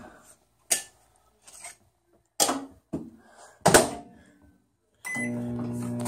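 A few sharp knocks and clicks as a microwave oven is loaded and its door shut, then about five seconds in a short beep and the oven starts running with a steady electrical hum.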